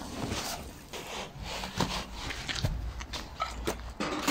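Empty steel wheelbarrow being pushed and turned: the tray and handles rattle, with a run of irregular knocks and clatters and a short squeak or two.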